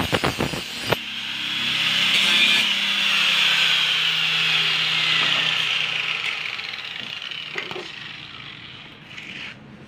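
Angle grinder chattering against a steel machete blade, lifted off about a second in. The motor then runs free and winds down with falling pitch, fading away over several seconds.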